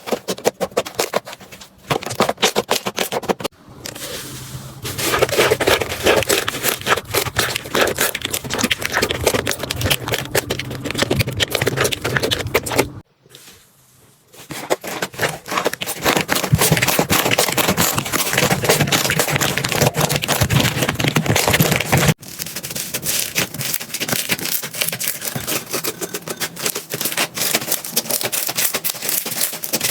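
Slime being squeezed, poked and stretched by hand, making dense crackling and popping clicks. The sound changes abruptly a few times, with a brief quiet break near the middle, as one slime clip cuts to the next.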